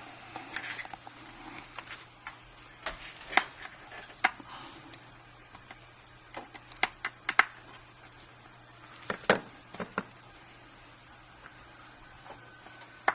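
Small sharp clicks and taps of tools and iPhone parts being handled on a workbench, irregular, with a quick run of three clicks about seven seconds in.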